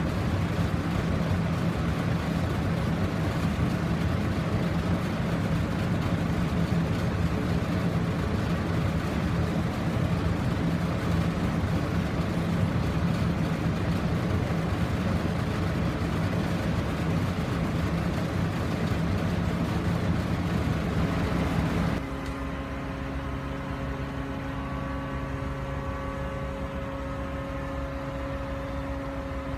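An engine running steadily with a constant low hum; about 22 s in it cuts suddenly to a quieter, steadier engine hum with a higher tone.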